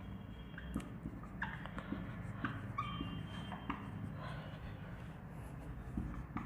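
Marker writing on a whiteboard: short scratchy strokes with brief high squeaks, over a faint steady low hum.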